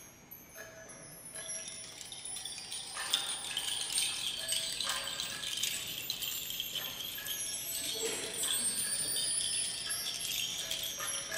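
Percussion ensemble playing high, tinkling chimes and small bells, the ringing growing gradually louder and denser. A short, lower pitched note repeats now and then underneath.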